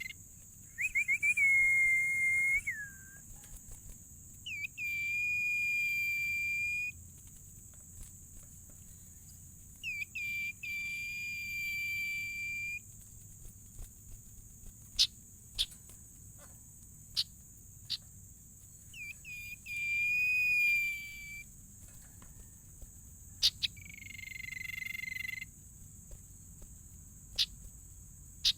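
Sirtu bird calling: five long whistled calls, each opening with a quick stutter of notes and then holding one steady high note for about two seconds. Under the calls there is a constant high-pitched hiss and a few sharp clicks.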